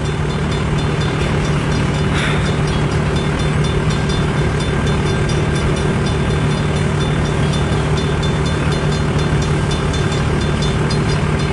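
Cars of a long mixed freight train rolling steadily past, a continuous rumble and rattle of wheels on rail.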